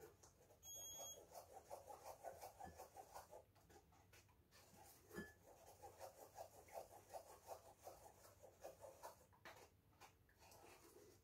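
Wooden spoon scraping and pressing wet blended potato-and-oat paste through a fine mesh sieve: faint, quick rhythmic strokes of about four a second, pausing briefly around the middle. A brief faint high tone sounds about a second in.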